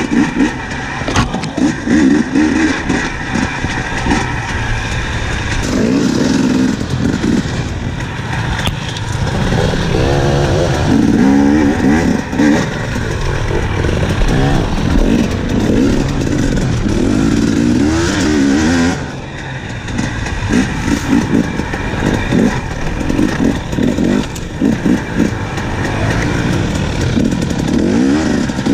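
2017 KTM 250 EXC two-stroke enduro engine revving up and down over and over as the throttle is worked on tight trail, with its pitch rising and falling every second or two. The bike knocks and rattles over rough ground, and the engine eases off briefly about two-thirds of the way through.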